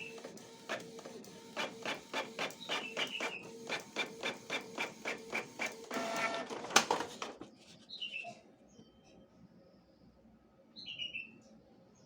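Canon PIXMA iP2770 inkjet printer mechanism clicking in a steady series, about three clicks a second, then a short motor whir that ends in a loud clack about 7 seconds in. The printer is being serviced for a print-head cleaning.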